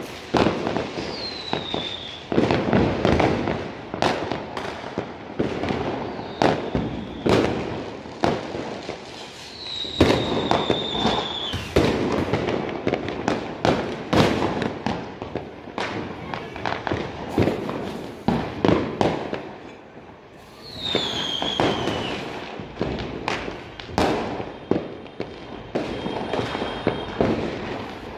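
Fireworks and firecrackers going off all around in a dense, irregular string of bangs and crackles. A short falling whistle cuts through about a second in, again around ten seconds in, and again around twenty-one seconds in.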